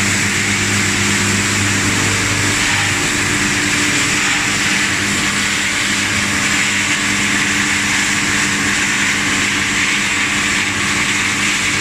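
PET bottle washing line machinery running: a steady hum of electric motors under a constant hiss, unchanging throughout.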